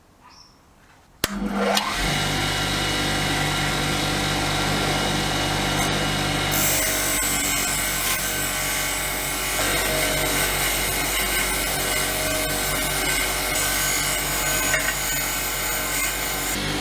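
An electric power tool switches on about a second in and runs steadily with a constant motor hum. A brighter, harsher hiss joins from about six seconds in and stops near the end.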